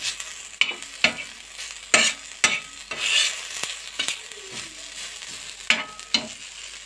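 Steel spatula stirring and scraping chopped onion, tomato and chilli with masala frying in ghee on a tawa: a steady sizzle with several sharp, irregular scrapes and clacks of the spatula against the griddle.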